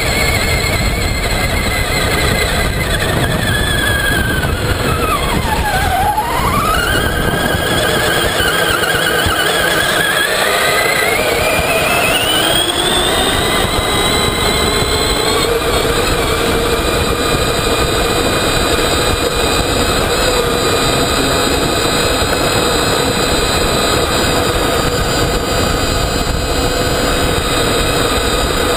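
Traxxas Summit RC truck's electric motor and geared drivetrain whining as it drives over sand, heard from a camera mounted on the truck. The whine drops in pitch as the truck slows about six seconds in, then rises as it speeds up again and holds steady from about fifteen seconds on, over a heavy rumble of tyre and wind noise.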